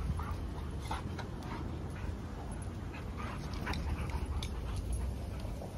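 Two dogs play-wrestling, with short dog sounds now and then over a steady low rumble.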